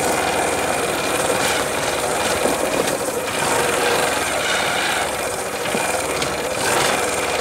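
Motorcycle engine running steadily while riding at low speed, mixed with wind and road noise.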